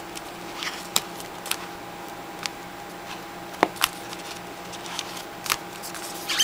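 Pokémon trading cards and the pages of a card binder being handled: scattered sharp clicks and flicks of card and plastic sleeve, over a faint steady hum.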